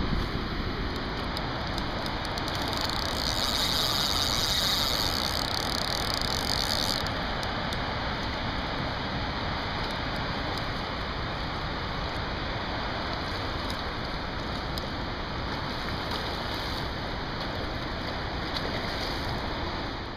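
Steady rushing of a river in heavy flood water, spilling through two open dam sluice gates and churning past the bank. A higher hiss joins it for a few seconds about three seconds in.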